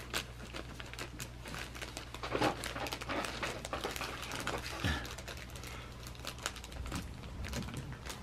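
Clear plastic zip-top bag crinkling and rustling as it is handled, with scattered small clicks.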